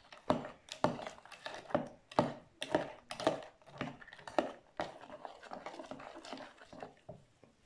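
Metal spoon stirring frozen cubes of goat milk and prickly pear gel in a plastic jug: irregular clinks and knocks about twice a second, fading out after about five seconds.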